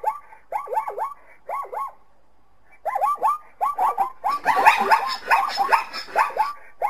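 Zebras calling: short barking yelps that fall in pitch, repeated in quick runs of about three, with a pause about two seconds in, then several calls overlapping from about halfway on.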